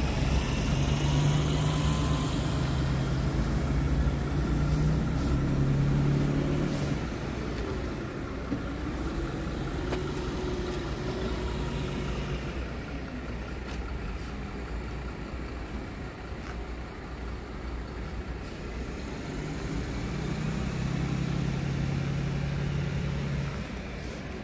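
Scania 124C 360 truck's straight-six diesel engine idling steadily, louder for the first several seconds and again near the end.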